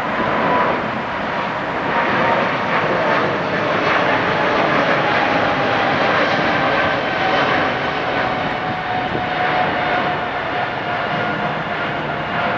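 Boeing 777-200LRF freighter's twin GE90 turbofans at takeoff thrust as the jet climbs out: a loud, steady jet noise with a whine that slowly falls in pitch.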